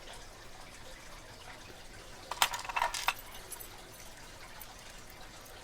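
A short cluster of light clicks and rattles about two and a half seconds in, from a padlock and its key being handled.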